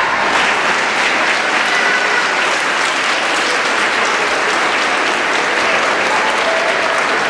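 A large audience applauding steadily, beginning as the music stops.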